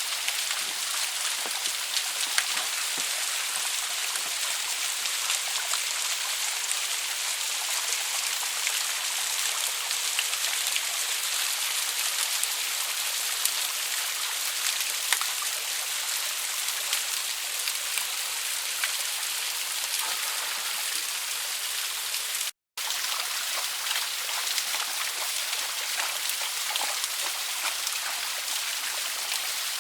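Small waterfall splashing steadily: a dense hiss of falling water with scattered drips and splashes. The sound drops out completely for a moment about three-quarters of the way through.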